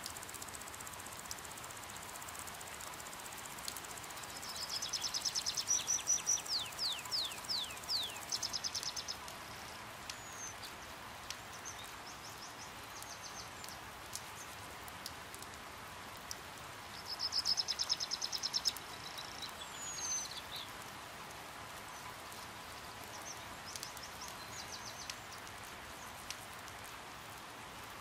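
Steady hiss of rain, with faint scattered drip ticks. Two bursts of rapid, high-pitched chipping bird calls, some sliding down in pitch, come about five seconds in and again around seventeen seconds.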